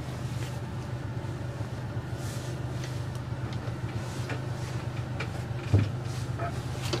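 Motorboat engine running steadily at low speed in reverse gear, a low even hum. Faint clicks, and a brief thump about six seconds in.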